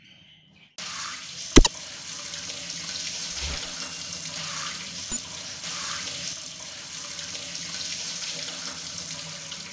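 Water running hard from a sink mixer's open outlet, its spout removed, splashing into a stainless steel sink and over a hand. The water comes on about a second in, with a sharp knock shortly after.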